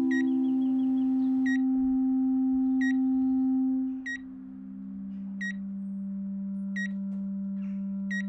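Hospital bedside heart monitor beeping with each heartbeat: short, even beeps about one every 1.3 seconds. Under it a steady low drone that drops in pitch and gets quieter about four seconds in.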